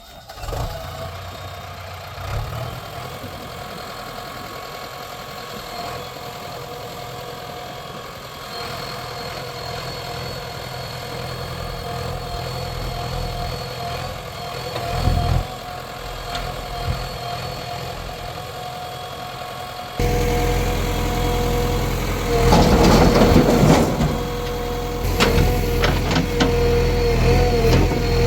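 Heavy diesel machinery engine running steadily. About twenty seconds in it gets louder and a second steady engine note joins, followed by a loud rough noisy burst lasting about two seconds.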